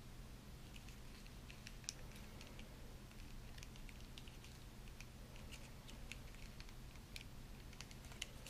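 Faint, scattered clicks and scratches of a hard plastic McFarlane Warhammer 40,000 Primaris Assault Intercessor figure being handled, its jointed legs and knees being flexed, over a low steady hum.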